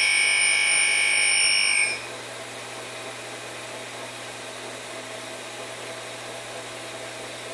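A grinding wheel finishing a single-flute countersink turned by hand in a sharpening fixture: a loud, steady, high-pitched whine that cuts off abruptly about two seconds in. After that the grinder keeps running with a low, steady hum.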